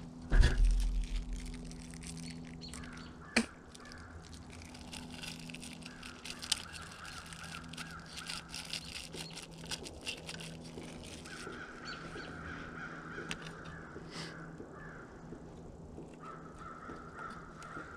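Hands splicing a feeder timer's wires: a thump about half a second in and a sharp click a few seconds later, then small clicks and rustling as wire ends are twisted together into wire nuts.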